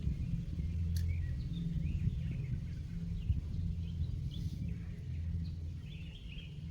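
Small birds chirping and calling again and again over a steady low wind rumble, with a single sharp click about a second in.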